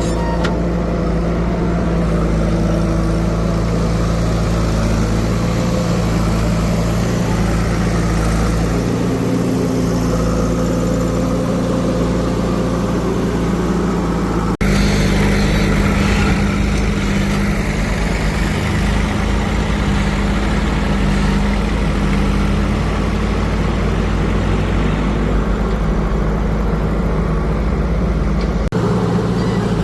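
Heavy diesel engine running steadily around idle. About halfway through there is an abrupt change in the engine note.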